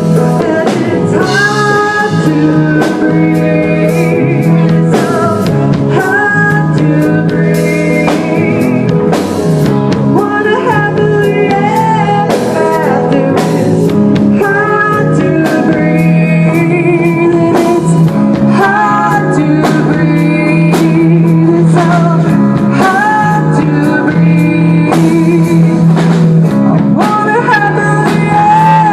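Rock band playing a song: guitar and drums, with a lead melody line over them.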